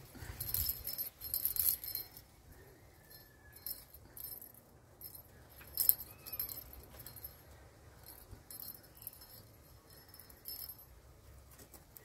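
A small bell inside a hollow plastic cat-toy ball jingling as a kitten bats and grabs it on its string: a flurry of jingles in the first two seconds, a sharp one about six seconds in, then fainter scattered jingles.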